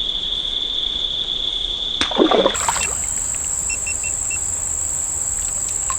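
Steady high drone of insects, with a short splash in the creek water about two seconds in, and a few faint short chirps after it.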